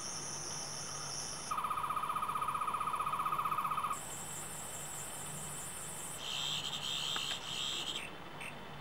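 Tenth Doctor's sonic screwdriver universal remote playing a run of its electronic sonic sound effects: a steady high whine, then a lower, fast-warbling buzz from about one and a half seconds in, switching to other high whining tones around four and six seconds, and pulsing beeps near the end.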